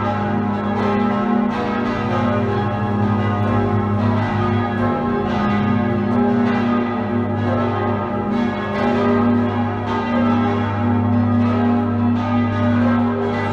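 Full peal of six swinging church bells tuned G♯, B, D♯, F♯, G♯ and E, the great G♯ bell and the D♯ bell cast by Jakob Mathis Rageth in 1781. The strokes overlap in a steady, unbroken clangour, with the deep hum of the largest bells underneath.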